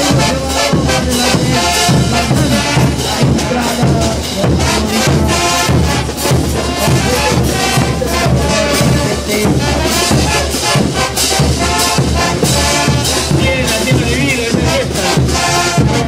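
Bolivian brass band playing on the march: sousaphones, trumpets and other brass over a steady beat of bass drums and hand cymbals.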